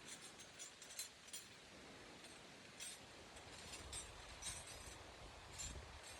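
Faint, irregular metallic clinks of hand tools being handled, about eight short taps over a few seconds.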